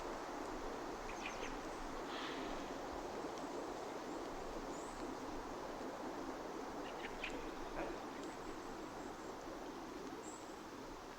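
Steady outdoor background noise with a few short, high bird chirps: a cluster about a second in, one around two seconds, and several more near seven to eight seconds.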